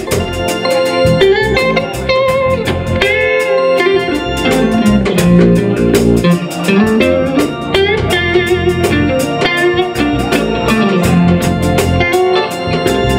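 Live rock-reggae band playing an instrumental break: an electric guitar leads with bent, wavering notes over drums, bass guitar and keyboard.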